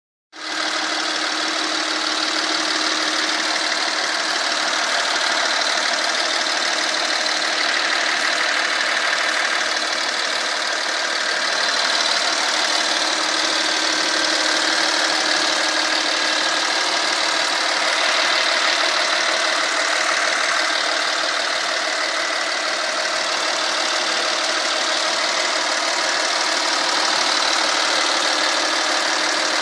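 Hyundai Veracruz's V6 CRDi diesel (S2 engine) idling steadily under the open hood.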